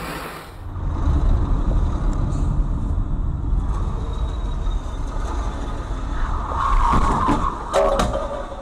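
Dashcam sound from inside a car in traffic: a steady low rumble of engine and road, then near the end a short swell of noise and two sharp knocks close together as one car strikes another.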